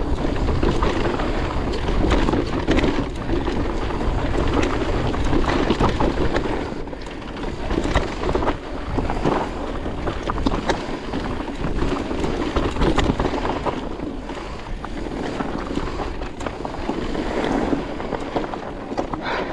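Mountain bike descending a dirt and gravel trail: wind buffeting the action-camera microphone, tyres rolling over the loose surface, and frequent small knocks and rattles from the bike over bumps.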